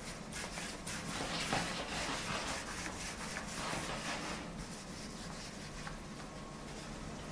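Hand-rolling pici pasta dough on a wooden pastry board dusted with semolina: the dough and palms make a soft, continuous rubbing, a little stronger in the first half.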